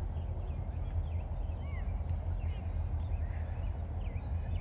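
Steady low rumble of outdoor ambience, likely wind on the microphone, with faint distant calls rising and falling every second or so.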